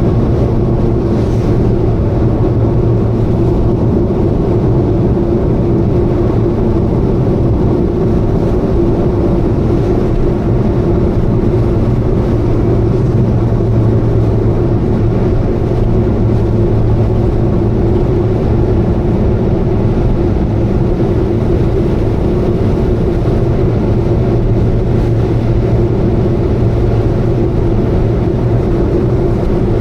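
Subaru Vivio kei car's four-cylinder engine and exhaust running at a steady cruise with a constant low drone, an abnormal noise that the owner thinks may be an exhaust leak.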